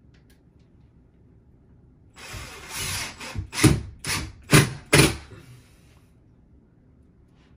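Cordless drill driving a screw into wood: a run of just over a second, then four short trigger bursts about two a second, each winding down in pitch.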